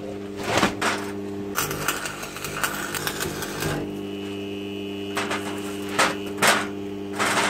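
Stick (MMA) welding with a Sealey 140XT AC arc welder: the electrode's arc crackles and sputters in irregular bursts over a steady low hum.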